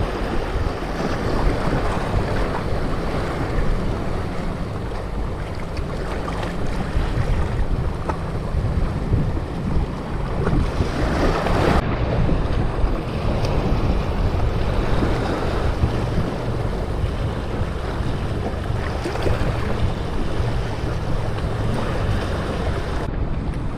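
Wind buffeting the microphone over waves washing and splashing against shoreline rocks.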